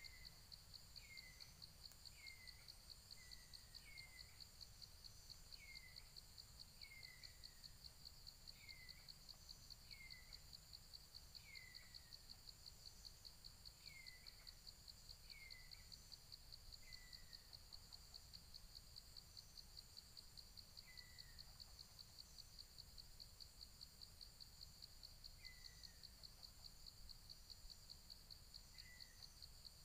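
Faint steady insect trill, pulsing fast and evenly. Over it come a bird's short falling chirps, about one a second at first, then only now and then.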